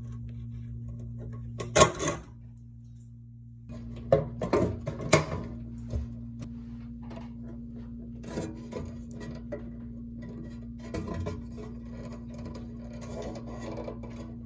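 Sharp knocks, clicks and clatters of metal parts being handled as the wire junction box is worked loose from a bathroom exhaust fan housing, loudest about two seconds in and in a cluster around four to five seconds, over a steady low hum.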